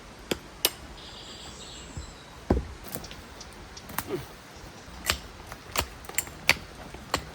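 Stones knocking against each other in sharp, irregular clacks as rocks are shifted and set into a dry stone wall.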